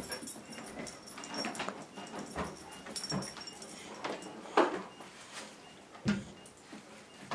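Hiccupping: a run of short, sharp hics roughly a second apart, the loudest a little past halfway.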